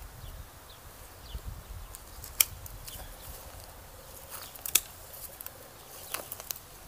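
Pruning shears snipping grapevine canes: sharp single clicks, two louder ones about two and a half and five seconds in, then a few lighter snips near the end.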